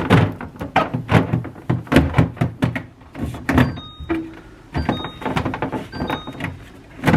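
Repeated knocks and clatter of containers and food items being handled, set down and slid in and out of a refrigerator's shelves and drawers during a clear-out.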